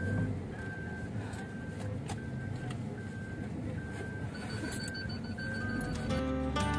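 A car's warning chime beeping steadily inside the cabin, just under two beeps a second, over the low hum of the running car. Guitar music comes in near the end.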